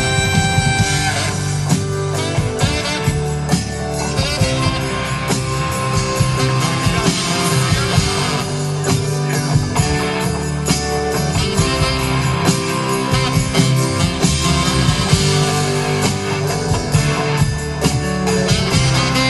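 Live band playing an instrumental passage, with guitar lines over a drum kit.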